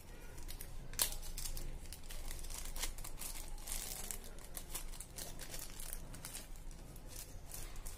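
Small clear zip-lock plastic bag crinkling and crackling as it is handled and pulled open, with a sharp crackle about a second in.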